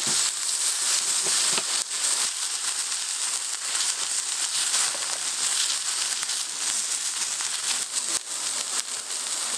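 Marbled beef steaks sizzling on a hot griddle pan over a portable gas stove: a steady high hiss dotted with many small crackling pops.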